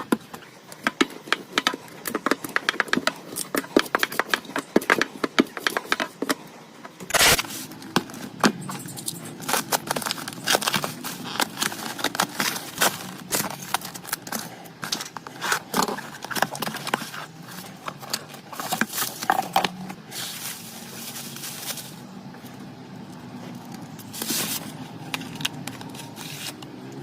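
Handling noise of small hard parts: rapid light clicks and scrapes, with one louder knock about seven seconds in and short scraping hisses later on.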